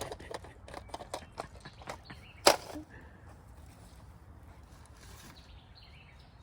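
Things being handled and rummaged through: a quick run of small clicks and knocks, with one sharp, loud knock about two and a half seconds in, then quiet.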